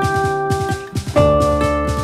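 Instrumental background music: held chords over a drum beat, with the chord changing a little past a second in.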